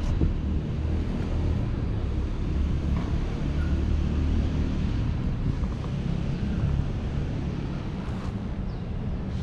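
Steady low rumble of wind buffeting the camera's microphone.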